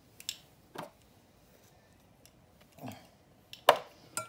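A few light clicks and clinks of spice jars and dishes being handled, with one sharper clink a little before the end.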